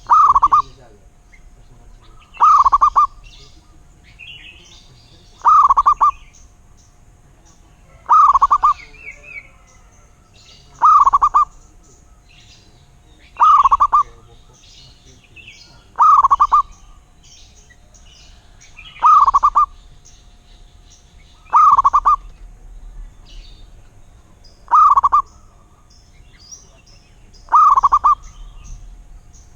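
Zebra dove (perkutut) cooing: a short rolling coo phrase repeated about every two and a half to three seconds, eleven times. Faint chirping of small birds sounds between the coos.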